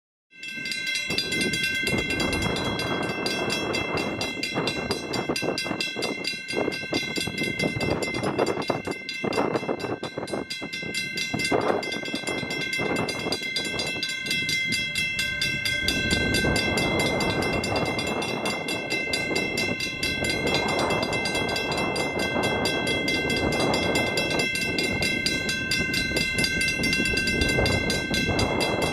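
Western Railroad Supply 222 mechanical level-crossing bell starting up and ringing continuously with fast, rapid strokes and several steady ringing tones, over uneven background noise.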